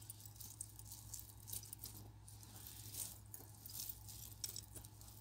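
Faint clinking and rattling of metal necklace chains and rosary beads as a tangled pile of jewelry is handled and pulled apart, as scattered small clicks over a low steady hum.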